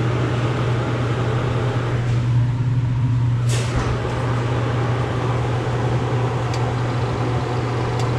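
Loud, steady low hum of a reach-in cooler's hermetic compressor, powered but failing to start. A short knock about three and a half seconds in.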